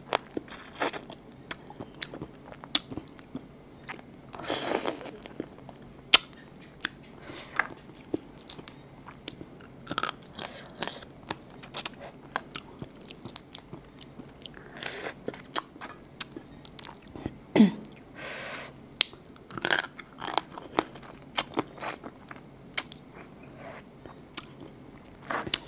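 Close-up eating of raw blue swimmer crab: biting and chewing, with many sharp cracks and crunches of the shell and a few short wet sucking or slurping noises.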